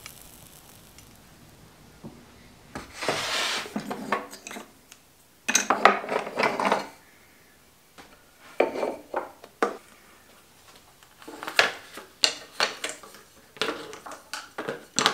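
Metal tools and small objects being handled on a wooden workbench: clinks, knocks and rubbing in about five short bouts, with a cloth wiping a metal tool near the end.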